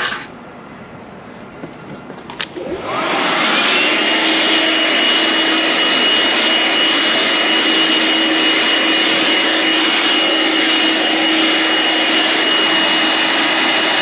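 An electric motor, a sharp click, then the motor spinning up with a rising whine about three seconds in and running steadily at full speed with a constant high whine.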